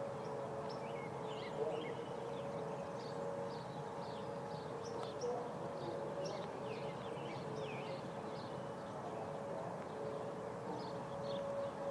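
Emergency warning siren holding a steady tone that weakens in the middle and swells again near the end, with small birds chirping throughout.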